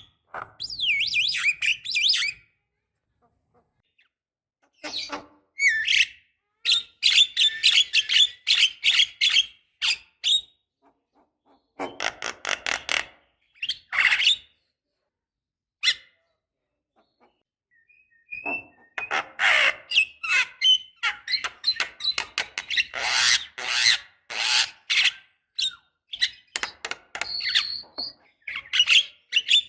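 Javan myna (jalak kebo) song: bursts of rapid, rasping chatter mixed with squawks and whistles, broken by short silent pauses, with the longest unbroken run of chatter in the last third.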